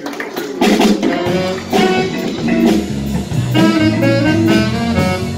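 Live blues band starting an upbeat, funky song: drum kit, electric guitar, bass and saxophone come in together about half a second in and play on.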